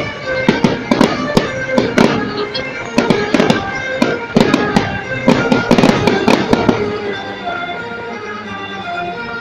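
Fireworks exploding in quick succession, a dense run of sharp bangs and crackles that thins out after about seven seconds, with music playing underneath throughout.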